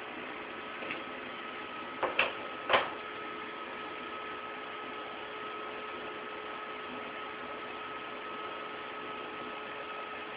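Thermal Arc Fabricator 181 welder running idle, giving a steady hum with a faint high whine. A few sharp clicks about two seconds in come as cable connectors are plugged into its front panel for the TIG setup.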